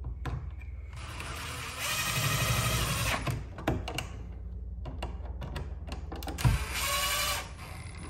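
Cordless drill driving a switch's mounting screw into a plastic electrical box. It runs once for about two seconds, then there is a sharp click and a second, shorter run near the end.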